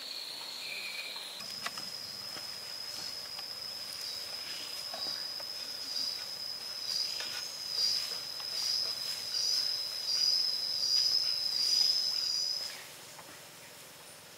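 An insect singing: one steady high-pitched buzzing note that wavers slightly, grows louder in the later seconds and stops abruptly near the end. Faint light clicks of bamboo pieces being handled sound under it.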